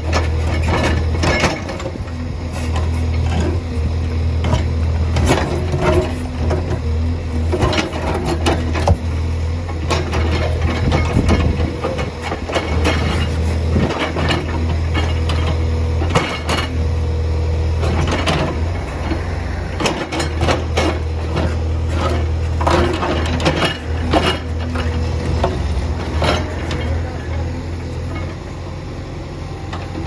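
CASE 851EX backhoe loader's diesel engine running steadily while the backhoe arm digs, with repeated sharp knocks and clanks from the bucket and arm.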